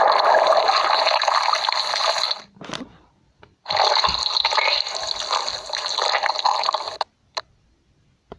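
Rushing, gushing water sound in a cartoon soundtrack. It runs for about two seconds, stops, then comes back for about three seconds before cutting off suddenly.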